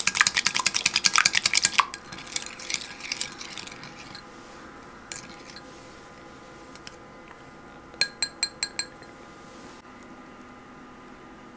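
Wire whisk beating a raw egg in a glass bowl, clinking rapidly against the glass for about two seconds, then slowing and fading. About eight seconds in, five quick clinks of metal on glass.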